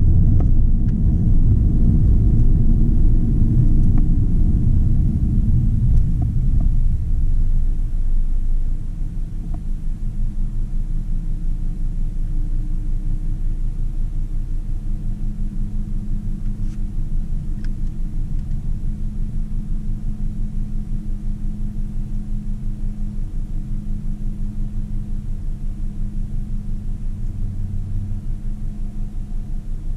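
Car cabin noise. The engine and tyre rumble is heard while driving, then eases as the car comes to a stop about eight seconds in. After that the engine idles with a steady low hum.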